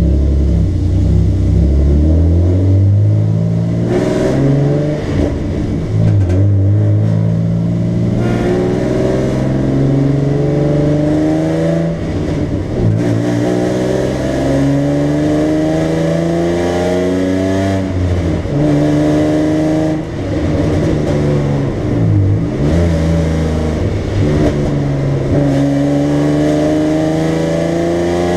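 BMW 325i's straight-six engine heard from inside the cabin, accelerating hard: the revs climb again and again and drop back at each gear change, with a few brief dips off the throttle.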